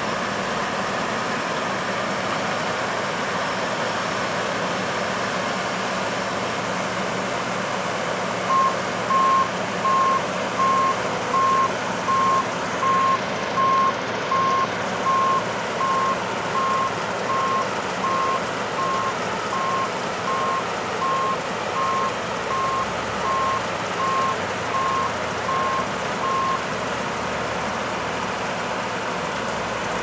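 John Deere S690i combine harvester running steadily in the field. From about a third of the way in, a vehicle's electronic warning beeper sounds about once every 0.7 seconds for some 18 seconds, growing fainter as it goes.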